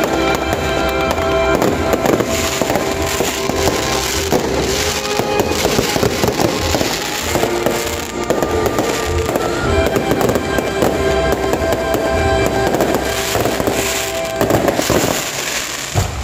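Aerial fireworks bursting and crackling one after another in quick succession, with music playing underneath.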